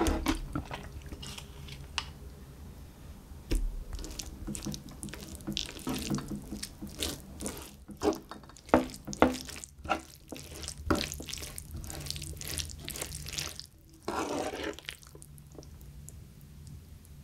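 Wet squishing and light clicking of a spoon and chopsticks mixing noodles and bean sprouts through thick, saucy spicy stir-fried small octopus on a plate. The strokes come irregularly, busiest in the middle, with one longer wet smear near the end.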